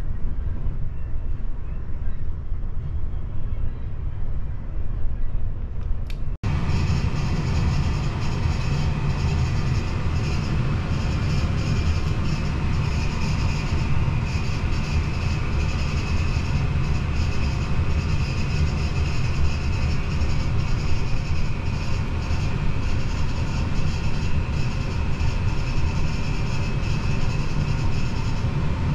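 Steady low mechanical rumble with a faint high whine, heard inside a turning Ferris wheel gondola. It cuts out for an instant about six seconds in, then resumes slightly brighter.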